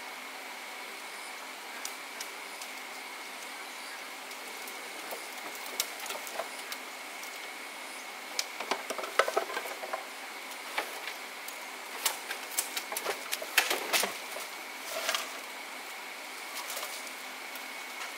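Scattered sharp clicks, taps and short rustles of handwork, bunched in the middle, over a steady thin high-pitched drone.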